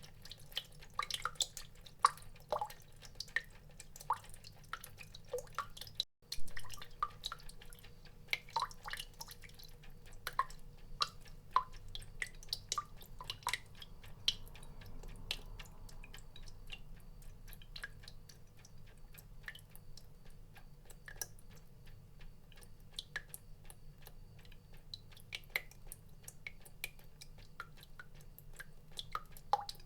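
Water drops dripping at an irregular pace, each a short pitched plink. There is a momentary break about six seconds in.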